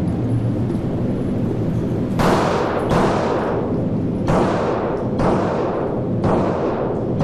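Five pistol shots fired at an irregular pace, each with a sharp crack and a trailing echo, over a steady rushing background noise.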